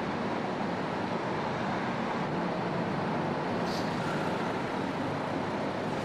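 Volvo FH 460 truck's six-cylinder diesel engine running steadily as the truck creeps forward inside the ferry's enclosed vehicle deck.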